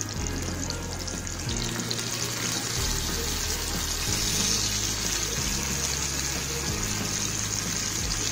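Whole sarputi (olive barb) fish frying in hot oil, a steady sizzle that grows louder a few seconds in as more fish go into the pan. Background music with a low bass line plays under it.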